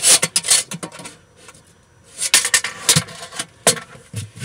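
Metal tape measure blade rattling, clicking and scraping as it is slid along the MDF floor of the subwoofer box's port, in bursts at the start and again a little past two seconds in, with a sharp click near the end.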